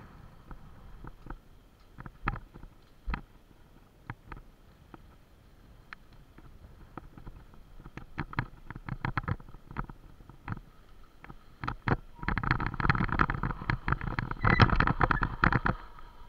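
Bicycle rattling and clattering as it rides over a rough dirt trail, with scattered sharp knocks at first, then a dense, loud run of jolts for about four seconds near the end before it eases off.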